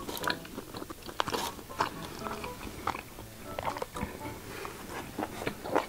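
Close-miked eating: chewing and biting food, with scattered small clicks and taps of metal chopsticks on the dishes.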